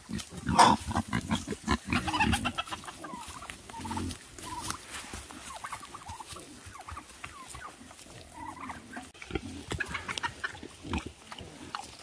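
Pigs grunting, loudest and busiest in the first three seconds, with quieter scattered grunts after.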